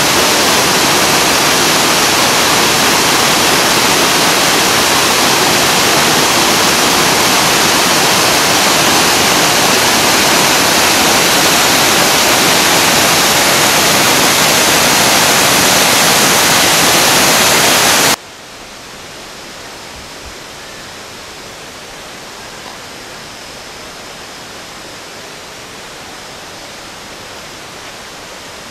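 Rushing water of a small rainforest waterfall, a loud steady roar. About eighteen seconds in it cuts off abruptly to a much quieter, steady background hiss with a faint high-pitched whine.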